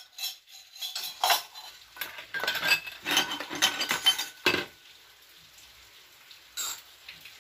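Metal dishes and utensils clinking and clattering as they are handled and set down, a quick run of knocks for the first few seconds, then one more clink near the end.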